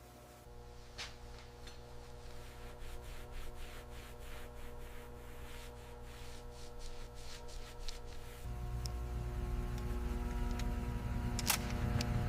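Faint scattered clicks and rubbing over a steady low hum, then a low rumble that comes in about eight seconds in and keeps growing louder.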